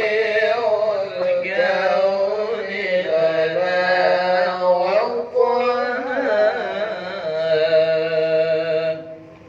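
A man's voice reciting the Qur'an in the melodic tilawah style through a microphone, drawing out long, ornamented notes with wavering, gliding pitch. There is a brief break about five seconds in, and the voice stops shortly before the end.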